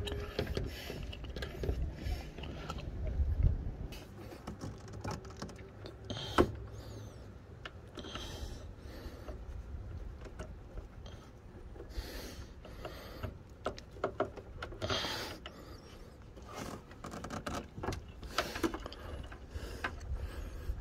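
Hands working plastic wiring connectors and parts behind a car's fender liner: scattered clicks, taps and rustles, with one sharp click about six seconds in.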